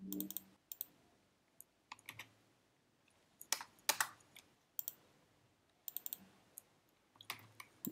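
Faint, scattered clicks of a computer keyboard and mouse, a few at a time with quiet gaps between.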